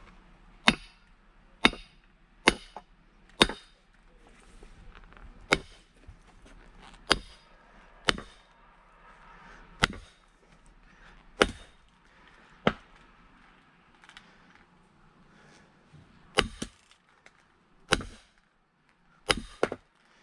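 Firewood being split by hand: about a dozen sharp, hard strikes on wood. Some come in quick runs about a second apart and others after pauses of a few seconds.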